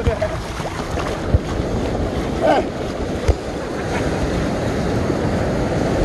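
Small waves washing onto a sandy beach, with wind buffeting the microphone in low thumps. A distant voice or two cuts through briefly.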